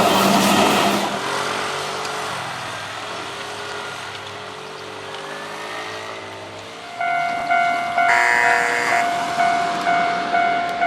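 A Keihan 2600 series train finishes passing over a level crossing, its noise dropping away about a second in and fading to a faint wavering whine. About seven seconds in the crossing's electronic warning bell starts, a steady repeating ding roughly one and a half times a second, signalling that the next train is approaching.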